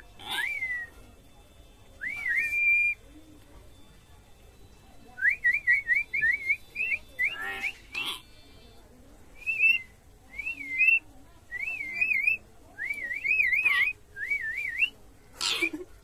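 Hill myna whistling: a string of short rising and wavering whistles, several running into quick trills, broken by a few short harsh noises.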